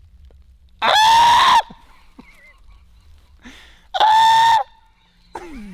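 Two loud, steady-pitched honking calls, each under a second long, about three seconds apart.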